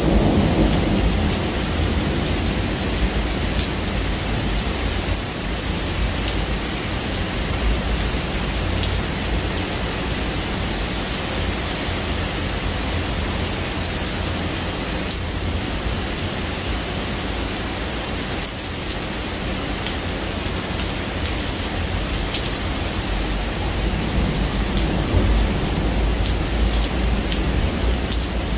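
Steady heavy rain falling in a thunderstorm. A thunder rumble fades out in the first second, and a low rumble of distant thunder swells about 24 seconds in.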